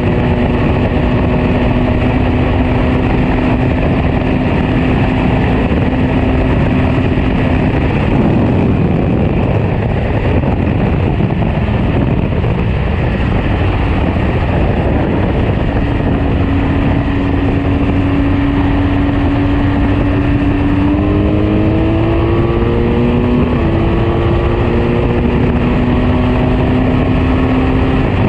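BMW R 1250 GS Adventure Rally's boxer-twin engine running at road speed under heavy wind rush over the microphone. The engine note holds steady, is lost in the wind for several seconds, then comes back and rises as the bike accelerates, with one upshift near the end and the pitch climbing again.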